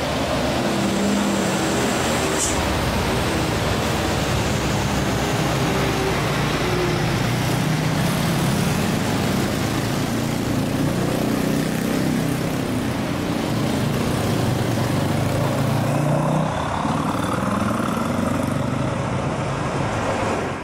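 Diesel trucks labouring up a steep mountain road and passing close by, engines working hard under load, their note rising and falling as they pull through the bends. A short high-pitched squeal cuts in about two and a half seconds in.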